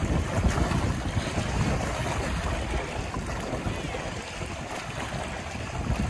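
Wind buffeting the microphone with a gusty low rumble, over choppy lake water splashing and lapping against shoreline rocks.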